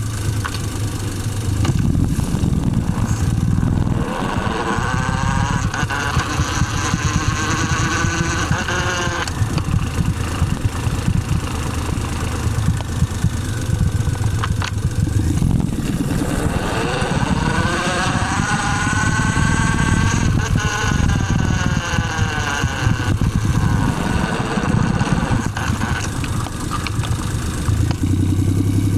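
Car engine running with a whine that rises and then falls in pitch twice over the drivetrain rumble. This is the abnormal gearbox noise being demonstrated.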